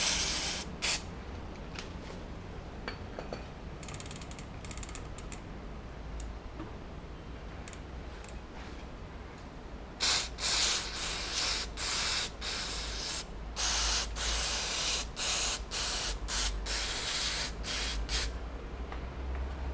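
Cyclo aerosol brake cleaner sprayed through a straw nozzle onto a bicycle's rear cassette in short hissing bursts: a few early on, then a quick run of a dozen or so in the second half. Between bursts the rear hub's freewheel pawls tick as the wheel turns.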